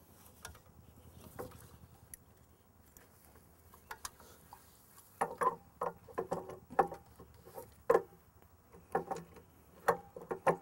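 Light metal clicks and knocks from a transport wheel set being fitted onto a portable stump grinder's leg: a few scattered clicks, then a run of quick knocks from about five seconds in.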